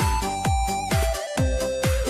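Instrumental music: a held, sliding lead melody in the voice of an electronic wind instrument plays over a steady electronic dance beat, with a kick drum about twice a second.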